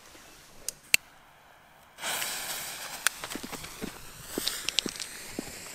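Two gold fountain fireworks catching about two seconds in and spraying sparks with a steady hiss, with scattered sharp clicks and pops over it. Two sharp clicks come about a second in, before the fountains catch.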